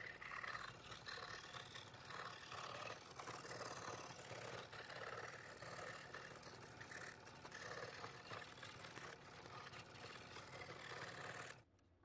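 Scroll saw running, its blade cutting a horse shape out of a wooden board with a steady mechanical sound. The sound stops abruptly near the end.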